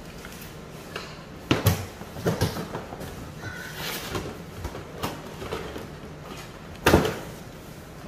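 Clunks and knocks of a plastic robot-vacuum docking station, the Roomba i7+ Clean Base, being handled and set in place. Sharp knocks come about one and a half and two and a half seconds in, and the loudest about seven seconds in.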